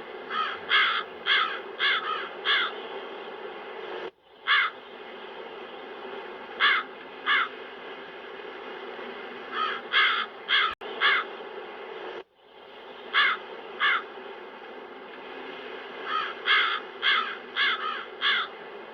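Crows cawing in runs of one to six harsh caws, over a steady wind noise that cuts out briefly twice.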